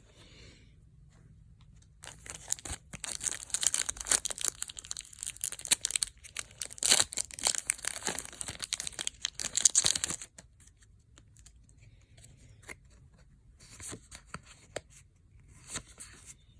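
Foil Pokémon booster pack wrapper being torn open and crinkled, a dense crackling rip for about eight seconds, followed by a few shorter crinkles near the end.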